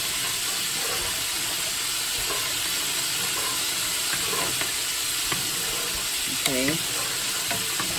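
Steady sizzle of chicken deep-frying in hot oil, with a metal spoon stirring penne through a pot of boiling water and a few light clinks against the pot. The chicken is still cooking, not yet done.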